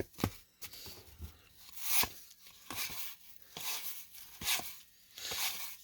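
Cardboard baseball cards being handled and slid against one another: irregular soft taps and short scraping swishes, with stronger swishes about two seconds in and again near the end.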